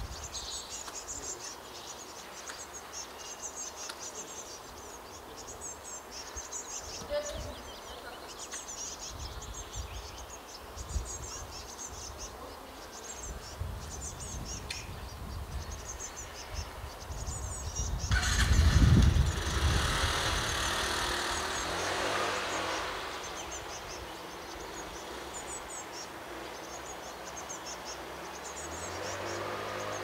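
Outdoor ambience of high, thin chirps repeating in short clusters every second or so. About two-thirds of the way through, a rushing noise with a low rumble swells up, becomes the loudest sound, and fades over a few seconds.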